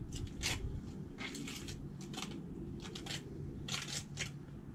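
Thick, sticky cement slurry being spread and scraped onto the back of a flagstone: a run of short, irregular scraping strokes, a few every second.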